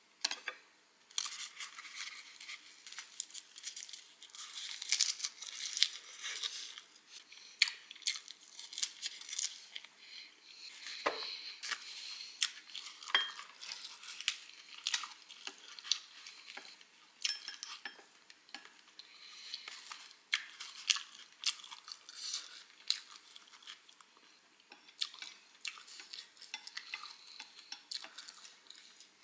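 Chewing a roll of dried seaweed (nori) wrapped around rice and noodles: many crisp crackles and clicks. Chopsticks click now and then against a porcelain rice bowl.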